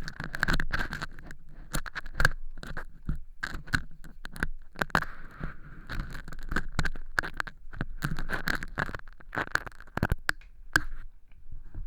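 Ear pick scraping and picking at dry, crunchy fake earwax made from cork chips inside a transparent silicone ear model. It makes irregular crackling scrapes and sharp clicks that thin out near the end.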